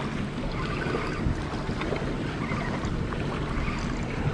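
Small fishing boat's outboard motor running steadily, with wind buffeting the microphone and water slapping against the hull.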